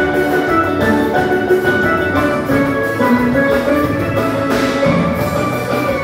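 Live dance band playing an instrumental passage without singing: sustained melodic instrument notes over a steady drum beat.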